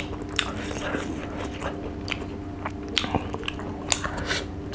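Close-miked eating: a mouthful of rice and fried fish chewed with irregular crunchy clicks and wet mouth sounds. A low steady hum runs underneath.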